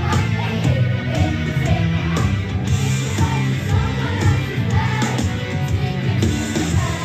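Rock song with singing over a steady, pulsing bass line.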